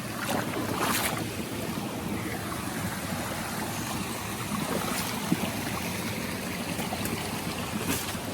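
Steady rushing of a rainforest waterfall and stream, with a few brief knocks over it.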